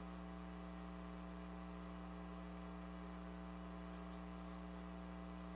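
Steady electrical mains hum with a stack of buzzing overtones, unchanging throughout.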